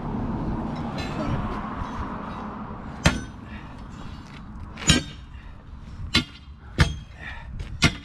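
Steel digging bars striking a concrete post footing and rock: sharp metallic clanks with a short ring, about six strikes spread over the last five seconds, breaking up the set.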